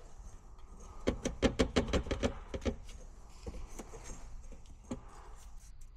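A quick run of about a dozen light clicks and rattles lasting under two seconds, then a few scattered taps: small hard objects being handled.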